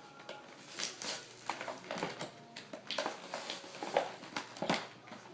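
Toy packaging being handled and opened: irregular crinkling rustles and sharp clicks of plastic and cardboard.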